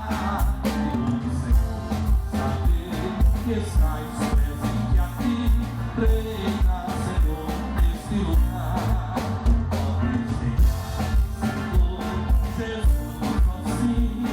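Live band playing a Catholic praise song, with a steady kick-drum beat about twice a second, bass and a singing voice.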